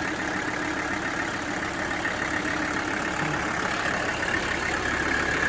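Mercedes OM617 inline-five turbo diesel idling steadily.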